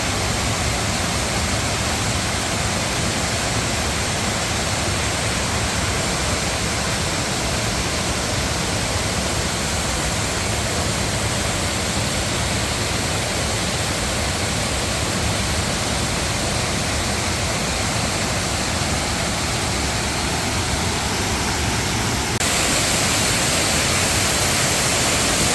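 A waterfall rushing steadily as an even roar of falling water. About 22 seconds in it becomes abruptly louder and brighter, then holds steady again.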